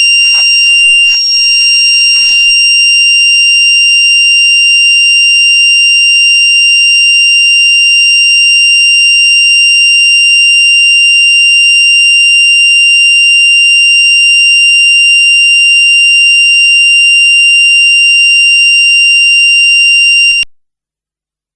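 Buzzer of a homemade electronic fire alarm circuit sounding one continuous, loud, high-pitched tone. It cuts off suddenly near the end.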